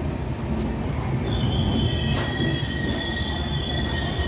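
Indian Railways passenger train rolling slowly into a station, a low rumble of coach wheels on the rails. About a second in, a high steady metallic squeal from the wheels begins, joined shortly after by a second, lower squeal tone, as the train slows to a stop.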